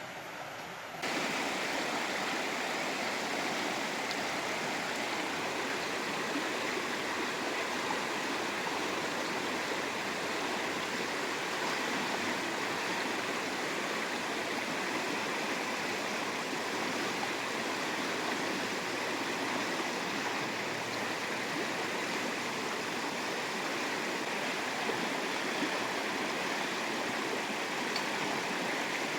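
Fast-flowing river water rushing steadily, turning louder about a second in and then holding even.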